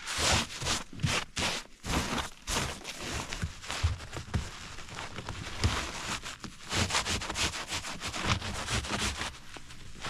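Irregular scraping, rubbing and crackling of ice as a frozen windshield wiper on a car is worked loose by hand.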